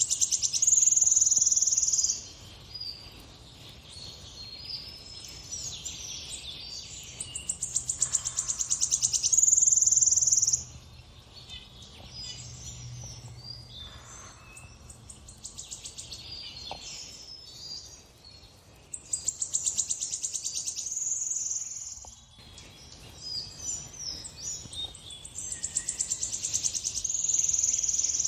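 Birds singing: four loud bouts of a fast, buzzy high trill that ends in a held high note, with softer chirps and twitters in between.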